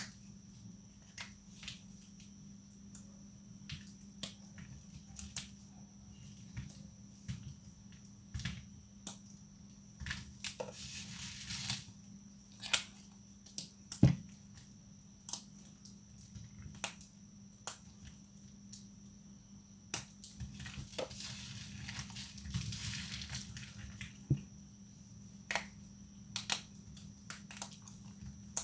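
Thin, dry soap plates being snapped and broken by hand: sharp cracks at irregular intervals, with two longer stretches of crumbling crackle.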